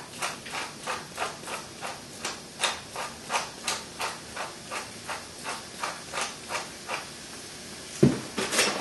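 Tall pepper mill being twisted by hand, grinding pepper in an even run of crunchy clicks, about three a second, that stops about seven seconds in. About a second later comes a single sharp knock as the mill is set down on the counter.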